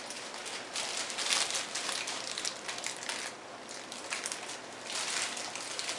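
Clear plastic bag crinkling as it is handled and turned over in the hands: a continuous run of small crackles with a brief lull a little past the middle.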